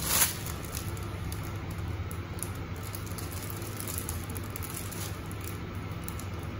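Thin plastic carrier bag holding a pizza box being grabbed by its handles and lifted: a sharp swish as it is gripped at the start, then light crinkling and rustling of the plastic. A steady low hum runs underneath.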